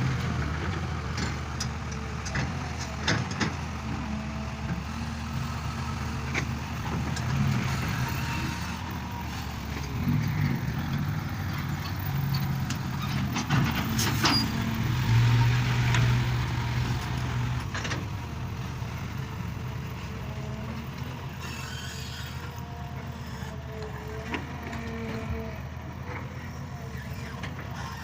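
Excavator's diesel engine running steadily, working harder for a couple of seconds about halfway through, with a few sharp knocks along the way.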